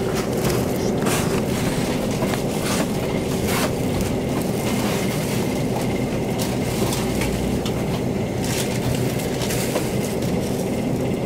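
Steady mechanical hum of a refrigerated produce display case, with irregular crinkling of plastic produce bags being handled.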